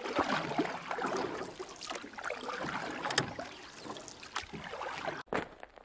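Water lapping and splashing, with irregular short splashes and knocks in it. It breaks off abruptly about five seconds in.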